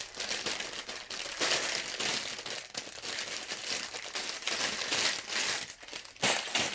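Plastic bags of Lego pieces crinkling as they are handled, with the loose bricks inside rustling and shifting.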